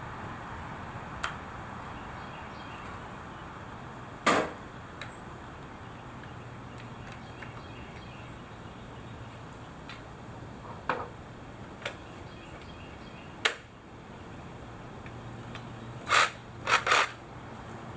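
Scattered sharp knocks and clacks of tools and wood during barn timber work, about eight in all, with three in quick succession near the end, over a steady low hum.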